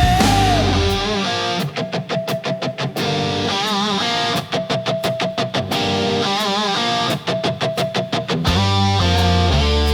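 Instrumental break in a rock song: a guitar plays a fast, evenly repeated picked figure with a few wavering bent notes while the bass drops out, and the full band comes back in near the end.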